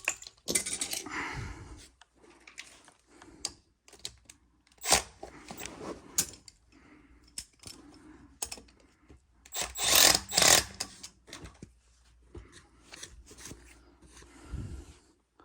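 Irregular clicks, knocks and rustling of tools and parts being handled, with louder clatters about five seconds in and again around ten seconds.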